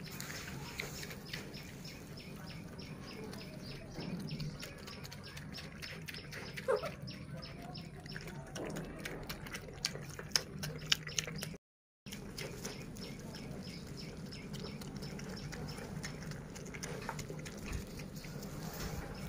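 A pig and a baby monkey eating fried noodles from a tray: a dense run of small wet chewing and smacking clicks, a few louder ones a little after the middle, and one brief high squeak about a third of the way in. The sound drops out for a moment a little past halfway.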